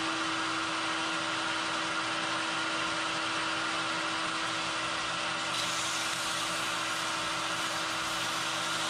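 Metal lathe running steadily, its motor and drive giving a constant hum with a steady mid-pitched tone. About halfway through, a brighter hiss joins it.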